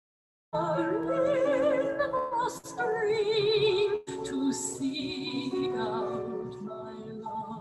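Music with a melody carried in long notes held with vibrato. It starts about half a second in, after a brief silence.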